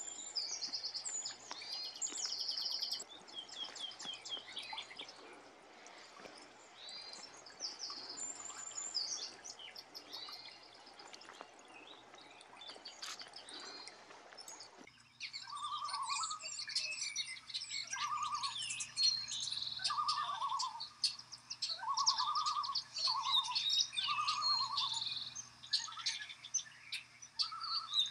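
Forest songbirds singing and calling, a busy mix of high chirps and trills. About halfway through, the background hiss drops out abruptly and a lower short call repeats every second or two under the birdsong.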